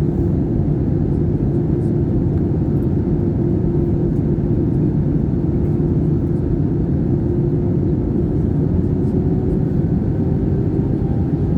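Airbus A320 on final approach heard from inside the cabin: a steady low rumble of engines and airflow, with a constant hum running through it.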